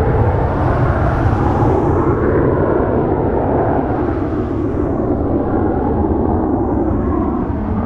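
NASA Lockheed ER-2's single General Electric F118 turbofan running as the jet flies away, a steady low rumble whose upper hiss thins out after the first couple of seconds.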